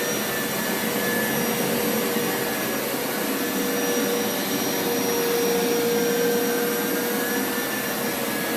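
Hoover Power Scrub Elite carpet washer running steadily: its suction motor whines over a constant rush of air and water being drawn up from the carpet. The dirty-water tank is nearly full.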